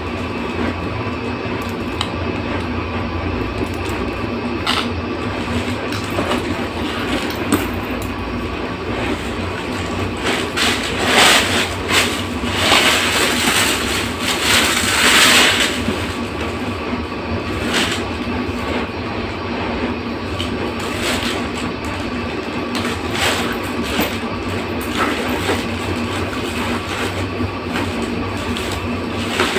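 Plastic packaging crinkling and rustling as a handbag is unwrapped, loudest from about ten to sixteen seconds in, with scattered smaller crackles. Underneath runs a steady machine hum.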